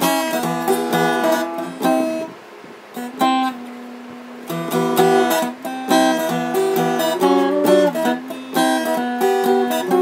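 Steel-string acoustic guitar strummed in chords, with no singing. About two seconds in, one chord is left to ring and fade for a couple of seconds before the strumming picks up again.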